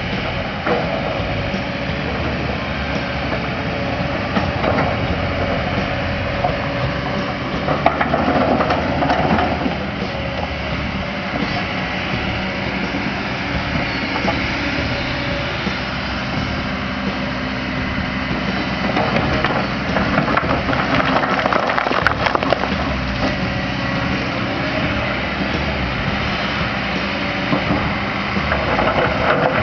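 Diesel engine of a JCB backhoe loader running steadily, with scattered knocks and clatter from the machine at work.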